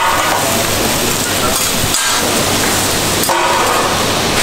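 Sliced potatoes frying on a flat-top griddle, a steady loud sizzle.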